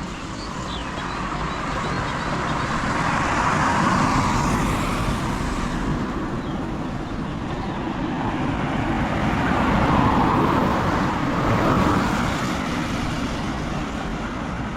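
Vehicles passing on a rain-wet road, their tyre hiss swelling and fading twice, over the steady noise of heavy rain.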